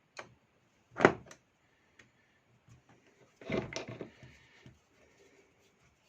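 Knocks and clatter of chainsaw parts and tools being handled during a teardown: one sharp knock about a second in, then a short burst of rattling knocks a little later, with small clicks between.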